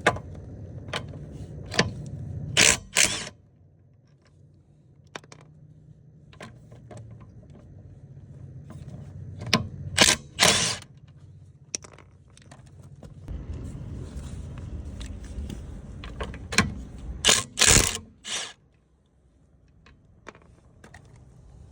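Milwaukee Gen 4 FUEL impact driver hammering in short bursts to break loose VW lug bolts tightened to 100 ft-lbs: three spells of impacting, each a pair of brief bursts under a second, with light clicks and a low steady hum between.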